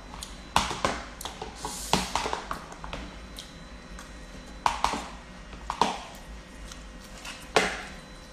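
A metal spoon clinking and scraping against a plastic food container while someone eats: a string of sharp, irregular taps, several seconds apart at most.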